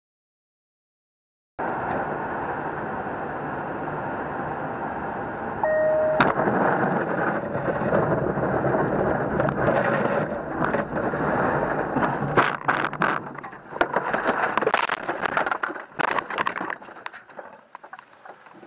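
Dense, rumbling vehicle noise, as picked up by a car dash-cam microphone, after a second and a half of silence. A short beep comes about six seconds in, and several sharp bangs follow in the second half before the noise turns choppy and quieter near the end.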